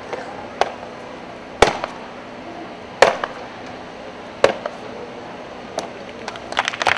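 A series of kicks smacking a handheld kick target: five sharp slaps, about one every second and a half, the second one the loudest. Applause starts near the end.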